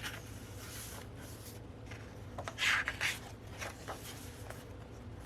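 Pages of a CD album's photobook being turned and handled: soft paper rustling with light ticks, and one louder page-turning swish near the middle.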